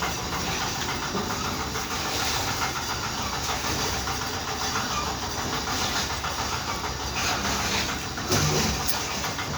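A septic siphoning truck's engine running steadily under a hissing rush, with a brief louder knock about eight seconds in.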